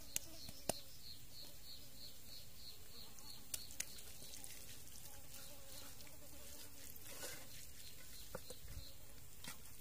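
Faint insect chirping in a steady rhythm, about four high chirps a second, with a few sharp clicks, one near the start and two more about three and a half seconds in.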